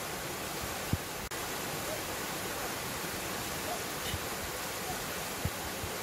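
Steady rush of a small mountain waterfall pouring into a shallow pool, an even hiss of falling water, with a couple of brief low bumps.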